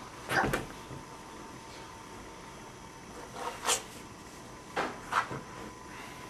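A few short knocks and clacks of small objects being handled on a table: two close together about half a second in, then several more from past the middle to near the end.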